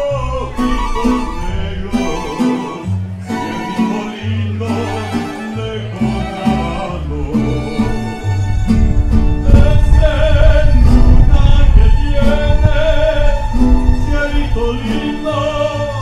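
Mariachi ensemble playing live, violins carrying the melody over strummed guitars and a plucked bass line. It swells louder around the middle.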